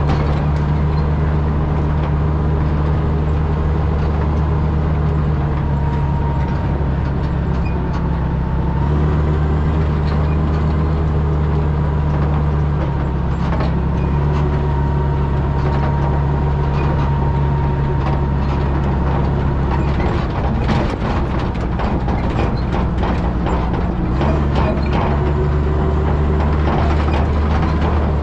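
Fire truck engine running under way, its low note stepping up and down a few times. Past the middle, the running is joined by clattering knocks and rattles.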